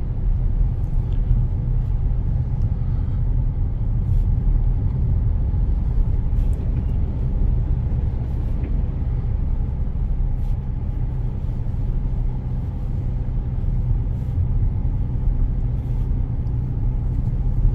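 Steady low rumble of a car driving on a snow-covered road, heard from inside the cabin: engine, tyre and road noise.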